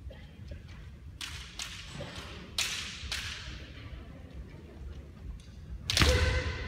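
Bamboo shinai of kendo fencers cracking sharply about five times in quick succession, then a loud, held kiai shout starts near the end.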